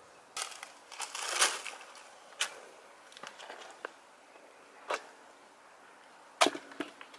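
Dry leaves crunching and rustling underfoot on bare soil as someone shifts and crouches. A longer rustle comes about half a second in, then a few sharp single crackles a second or two apart.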